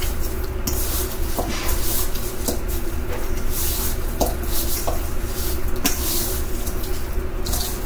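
Raw chicken wings being stirred and tossed with seasoning in a container: irregular wet squishing and rustling with a few light knocks, over a steady low hum.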